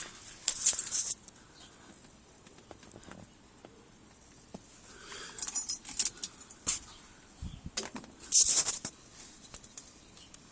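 Three short bursts of light metallic jingling, with a dull thump about seven and a half seconds in.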